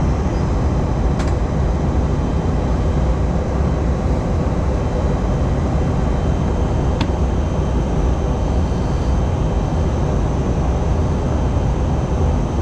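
Steady drone of jet engines and rushing air inside an airliner's cabin during the descent to land.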